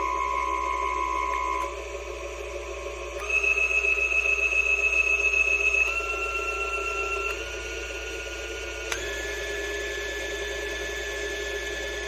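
Mini table saw's motor running with a steady whine whose pitch jumps in sudden steps several times as the speed setting is changed on its variable-speed controller. It is loudest, with a fast flutter, for a few seconds after the second change.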